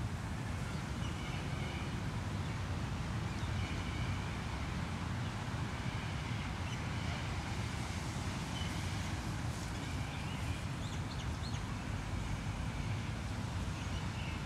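City park ambience: a steady low rumble of distant traffic, with birds calling briefly every second or two and a few higher chirps about two-thirds of the way through.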